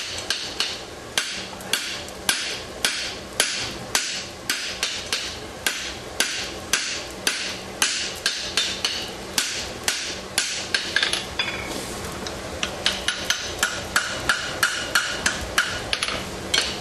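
Blacksmith's hand hammer striking red-hot steel on the anvil horn while forging the jaw and boss of a pair of tongs: a steady run of sharp blows about two a second, a short lull about twelve seconds in, then quicker blows.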